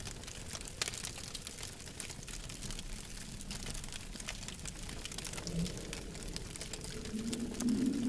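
Wood campfire crackling: a steady run of small pops and snaps over a low rumble, with a low hum swelling in near the end.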